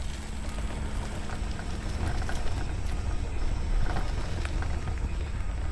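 Power wheelchair rolling over rough, cracked ground: a steady crackling rumble with many small clicks, and a low motor hum that stops about two seconds in.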